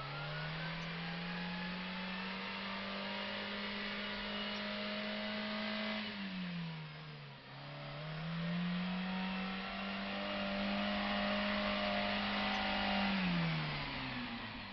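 A small 4x4's engine revved hard and held high as it pushes through a muddy rut. It eases off about six seconds in, revs up and holds again, then drops away near the end.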